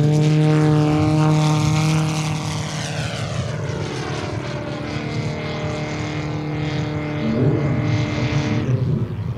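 Large RC Cap 232 model's 150 cc four-cylinder engine and propeller running at high power. It is loud as the plane passes low and climbs away, fainter over the middle seconds, and louder again about two seconds before the end.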